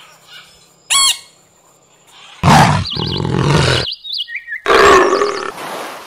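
Scarlet macaw calling: one short, clear call that rises and falls about a second in, then two loud, harsh squawks, one at about two and a half seconds and one at about five. High warbling notes sound over the squawks, and a steady hiss takes over near the end.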